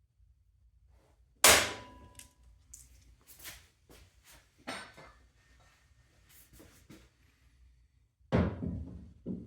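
Heavy steel parts of a motorcycle wheel vise and lift clanking together as the vise is fitted: a loud ringing clang about a second and a half in, several lighter knocks, then two more heavy clanks near the end.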